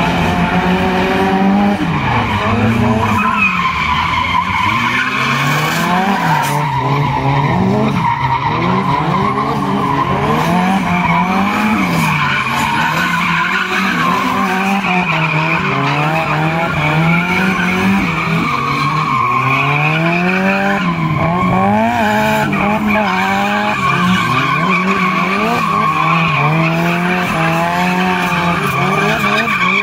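Two drift cars sliding in tandem, their engines revving up and down every second or two as the drivers work the throttle, over continuous tyre squeal.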